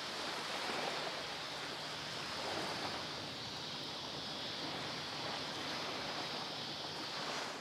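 Steady outdoor nature ambience: an even hiss with a constant high band, with no distinct events.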